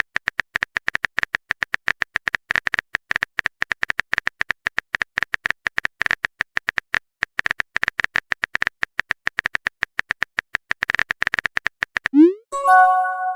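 Text-message typing sound effect: a rapid, uneven run of sharp keyboard taps, many a second, with a brief pause about six seconds in. Near the end a short rising swoop and a bright chime sound, a message-sent notification.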